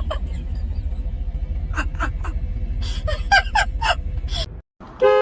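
Steady low rumble with a string of short, sliding, high-pitched yelps near the middle; after an abrupt cut, a short car horn blast sounds near the end.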